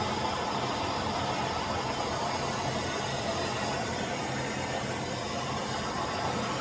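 Hot-air tool, likely a heat gun, running steadily with a fan hum and a rush of air while melting plastic into a crack in an RC car body.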